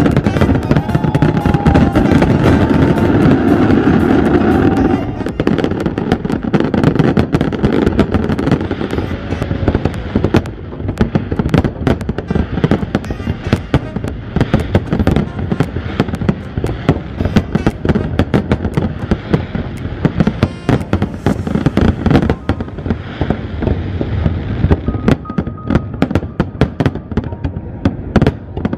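Aerial fireworks display: a continuous barrage of shell bursts and crackling. It is loudest and densest for the first five seconds, then settles into a steady run of rapid bangs.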